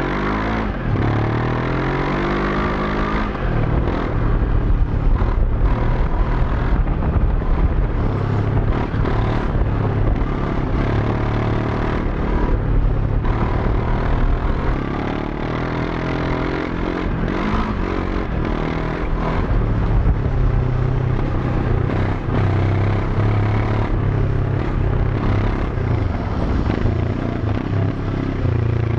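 Moto Morini X-Cape 700 adventure motorcycle engine pulling along an off-road track, the revs rising and falling as the rider works the throttle, over a steady rush of wind and ride noise.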